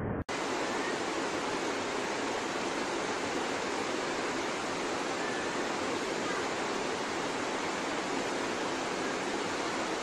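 Steady rushing of a rocky river's rapids, an even, unbroken hiss of white water that starts abruptly a moment in.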